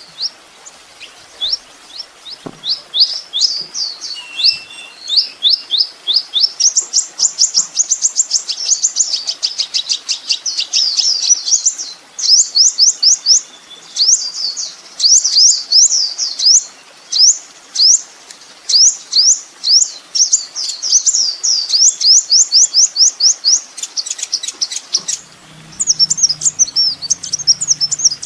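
Kolibri ninja (purple-throated sunbird) singing: long runs of high, thin sweeping notes repeated very rapidly, joined into fast trills and broken by short pauses, with a quicker chattering phrase near the end.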